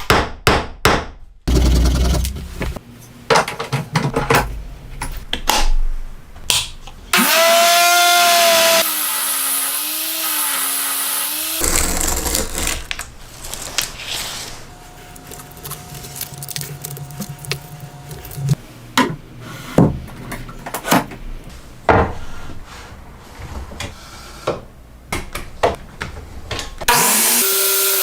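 Workshop tool sounds: scattered knocks and taps, with a small power tool's motor whining as it spins up and runs for about four seconds a quarter of the way in, then starting again near the end.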